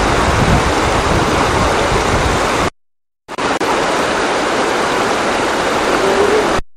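Shallow river running over a stony bed: a steady rush of water noise, broken by a brief dead silence about three seconds in.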